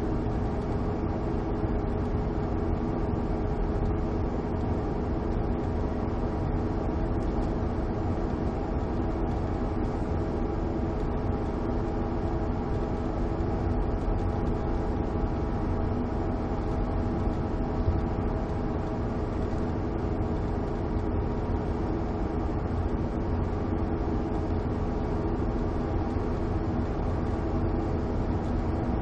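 Car engine and road noise heard from inside the cabin while driving at an even speed, a steady hum with a low rumble.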